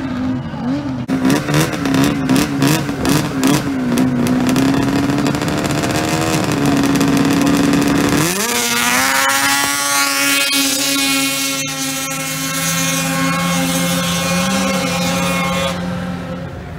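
Racing snowmobile engines. For the first few seconds the throttle is blipped, the pitch rising and falling quickly. About eight seconds in the sleds launch, and the engine pitch climbs sharply, then holds steady at high revs as two engines run side by side up the hill.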